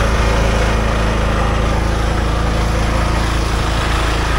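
Small engine running steadily at a constant speed, with no change in pitch or level.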